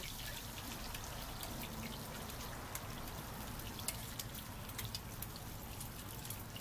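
Scallion pancakes deep-frying in a wok of hot oil: steady sizzling with many small pops and crackles, a sharper crackle about four seconds in as an egg goes into the oil.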